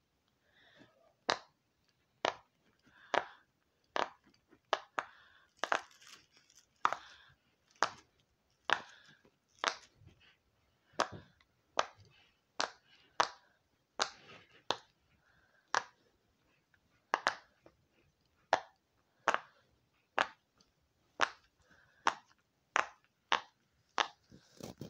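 Large square silicone push-pop fidget toy having its bubbles pressed in one by one with the fingers: a run of about thirty sharp pops, roughly one or two a second.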